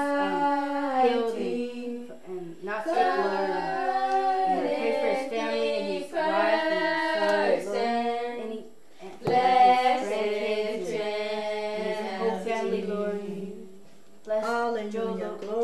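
Voices singing a hymn, a woman's voice among them, in sung phrases with short pauses between them.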